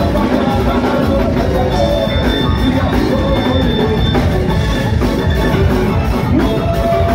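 Live soca band music, loud and unbroken from a music truck's sound system, with a pounding drum-and-bass beat under sustained melody lines.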